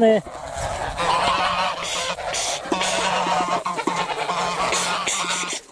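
A flock of grey domestic geese honking and cackling together, many calls overlapping in a continuous clamour, cutting off sharply near the end. It is the flock's agitated, defensive calling as a person walks in among them.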